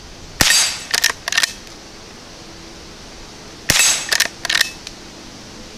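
Two rifle shots from a .22 LR Henry Frontier lever-action, about three seconds apart, each followed by two quick sharp clicks as the lever is worked to chamber the next round.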